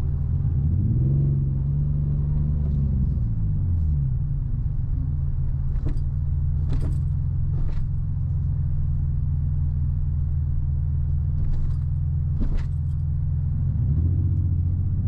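Nissan 350Z's 3.5-litre V6 running under way. The revs climb about a second in and drop back around the fourth second, hold steady, then climb again near the end. A few short sharp clicks come through in the middle.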